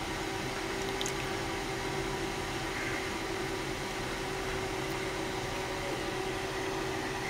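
Steady background hum with a hiss, unchanging throughout, with one faint tick about a second in.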